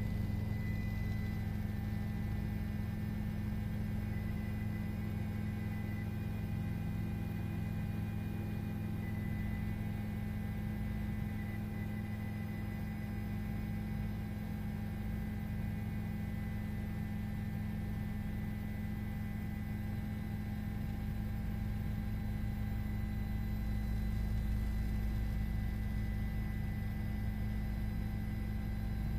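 A steady low hum made of several fixed tones, unchanging throughout.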